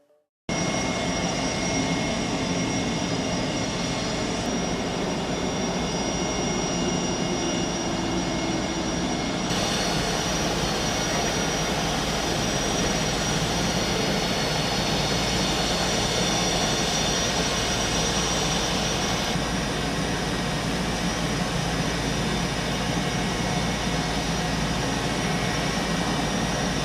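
MH-60S Seahawk helicopter's turbine engines running steadily, a dense rushing noise with a high, steady whine. The whine grows stronger about ten seconds in and eases back near twenty.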